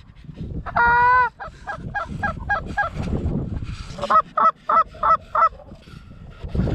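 Canada goose honking: one long honk about a second in, then two quick runs of short clucking honks, about five a second.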